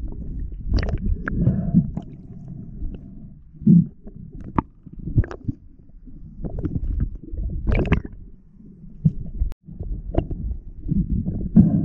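Muffled underwater sound picked up by an action camera in its waterproof housing: a low, churning rumble of water moving against the housing, broken by scattered sharp clicks and knocks.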